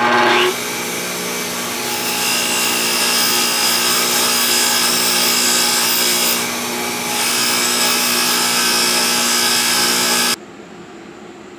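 Craftsman split-phase bench grinder running with a wire wheel while a steel nail is brushed against the spinning wheel: a steady motor hum under a dense metallic hiss. It cuts off suddenly about ten seconds in, leaving only faint room hiss.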